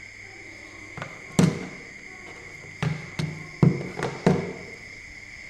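Handling noise: about seven short, sharp taps and knocks, irregularly spaced, over a faint steady high whine.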